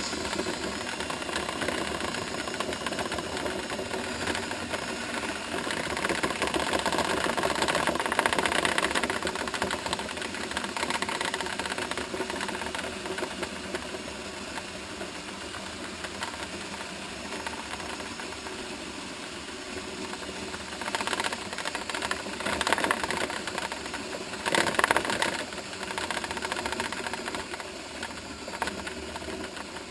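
Electric drill spinning a dryer-vent cleaning brush inside the exhaust duct: a steady whirring rattle as the brush knocks built-up lint off the duct walls, with a few louder surges about two-thirds of the way through.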